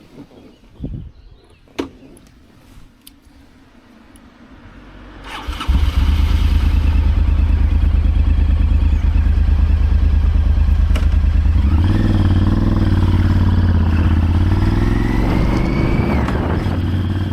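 A few faint clicks and knocks, then about five seconds in a motorcycle engine starts and settles into a steady idle. From about twelve seconds in its note rises and wavers a little.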